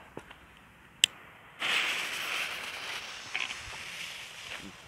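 A sharp click about a second in, then the fuse of a Fireevent Roter Korsar firecracker hissing after it is lit, fading slowly as it burns down toward the charge.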